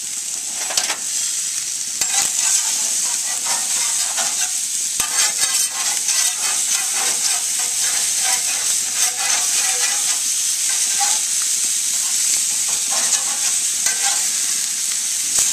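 Marinated chicken thighs sizzling and crackling on the hot grates of a gas grill, a steady hiss dotted with pops as juices drip onto the flames. Near the end a metal spatula slides under a piece on the grate.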